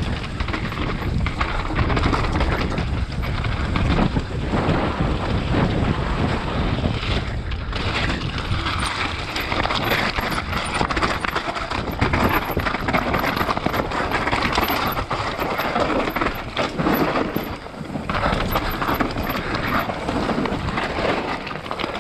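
Mountain bike descending a rough gravel and dirt trail at speed: wind rushing over the camera microphone, with tyres crunching over loose stones and a constant rattle and clatter from the bike over bumps.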